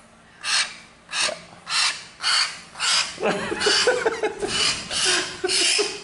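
A pet hill myna's harsh, breathy squawks of protest, about two a second at first, then about three seconds in a denser run of rougher calls with some pitch to them.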